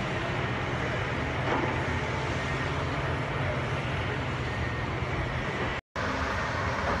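Steady drone of crawler bulldozers' diesel engines working. The sound drops out for an instant near the end and resumes unchanged.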